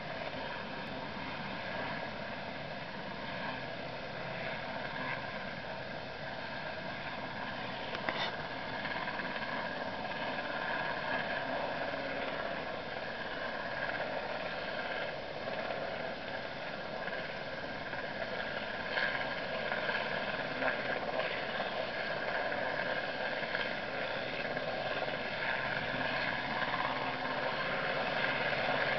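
Steady drone of a hovering Sea King helicopter, its rotor and turbine noise slowly growing louder as the winchman is lowered.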